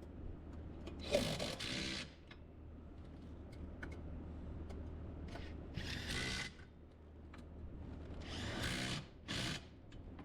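Power tool, such as a cordless drill or ratchet, running in several short bursts while driving the steering column's mounting bolts, over a low steady hum.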